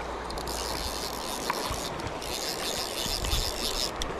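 Shallow stream running over gravel: a steady rush of water, with stretches of brighter hiss that come and go.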